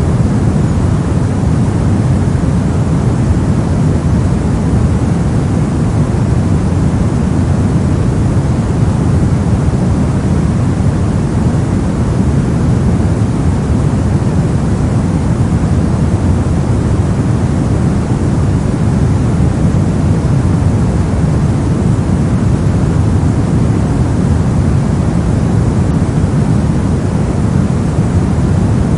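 Steady synthetic noise, deep and soft, weighted toward the low end like brown or pink noise, with no changes.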